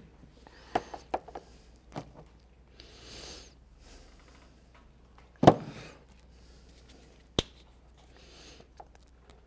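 Small clicks and knocks of paint bottles and little cups being picked up and set down on a work table, the loudest a sharp knock about halfway through, with two short soft hisses between them.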